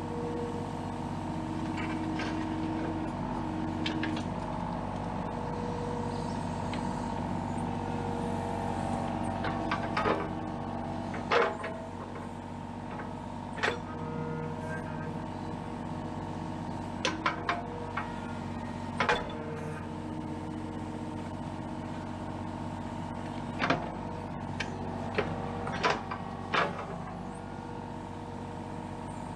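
Kubota KX033-4 mini excavator's diesel engine running steadily while digging, with short sharp knocks from the bucket and linkage every few seconds.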